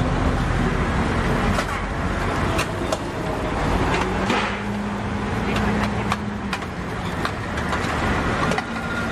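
Busy street-market ambience: a steady low rumble of traffic with a few sharp metallic clinks of utensils and trays, and a sustained engine-like hum for a couple of seconds midway.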